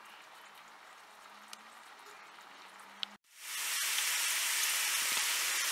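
Chopped onion and garlic frying in olive oil in a clay tagine. The first three seconds are quiet; after a brief dropout the oil gives a loud, steady sizzle.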